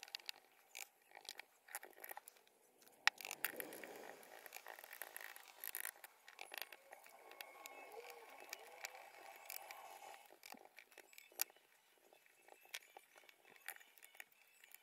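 Faint scattered clicks, taps and light scrapes of a paintbrush and fingers handling a small model steam locomotive over a board while it is weathered.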